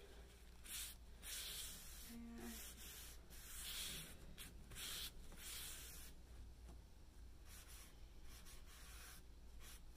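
Paper towel rubbing over a stained faux-wood table top in a series of wiping strokes, about one a second, wiping back the excess stain. The strokes grow fainter after about six seconds.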